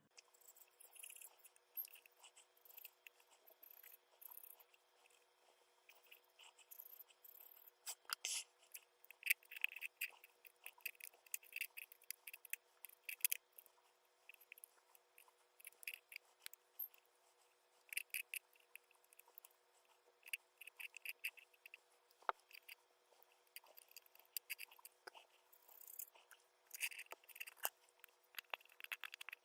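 Faint scraping and rubbing in short irregular bursts as old gasket adhesive is scrubbed off a Samsung Galaxy S5's frame with a cotton swab, with a few small clicks.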